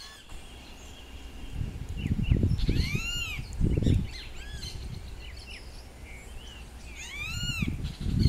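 Small birds calling: a quick series of short arched chirps about three seconds in and another series near the end, over a few low rumbles.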